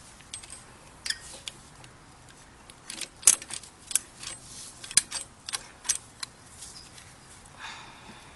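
Brake caliper piston compressor tool being worked to push the caliper piston back in, giving irregular sharp metallic clicks, several in quick succession in the middle, with a short scraping sound near the end.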